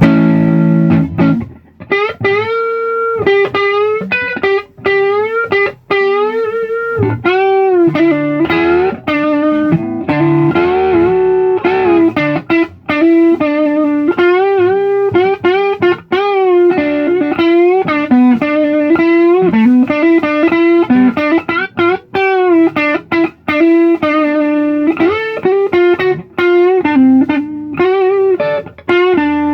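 Electric guitar played through its magnetic humbucker pickups, opening with a strummed chord and then running a single-note lead line with string bends and vibrato.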